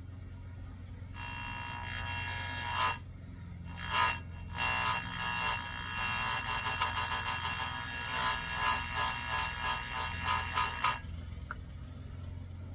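Electric chainsaw-chain grinder: the abrasive wheel grinding the cutters of a saw chain, a harsh, high grinding that starts about a second in, breaks off briefly around three seconds, then comes in quick repeated strokes and stops near the end. Under it the grinder's motor hums steadily.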